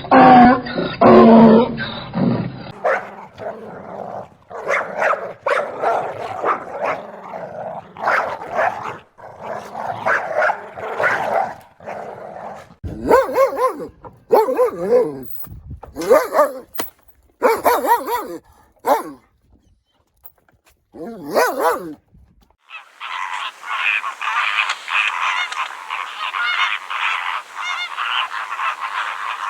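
Dog barking, yipping and whimpering in short separate calls, then, from about three-quarters of the way through, a dense steady chorus of frogs croaking.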